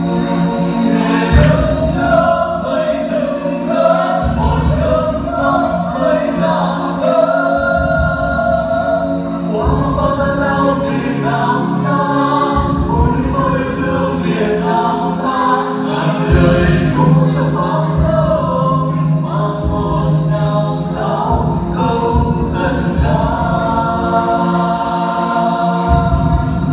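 Music with a group of voices singing together in chorus, the melody moving through long held notes.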